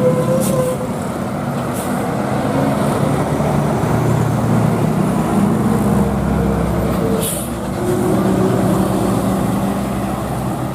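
Large bus's engine running steadily as it goes by, with a short burst of hissing about seven seconds in.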